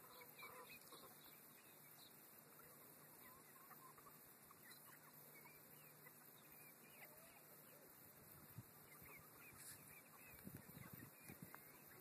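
Faint soft clucks and short chirping calls from a flock of young chickens foraging. A few soft low thuds come near the end.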